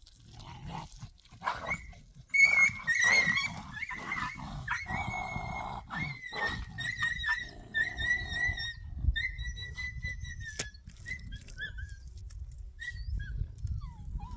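A dog whining: a high, drawn-out whine that wavers in pitch and breaks off and starts again many times over several seconds, with a few knocks underneath.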